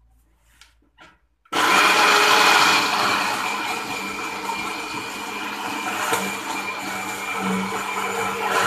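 Electric countertop blender switched on about a second and a half in, grinding chillies, shallots, garlic, ginger and anchovies with water into a chilli paste. It starts loudest while the chunks are being chopped, then settles into a steady run as the mix turns to paste.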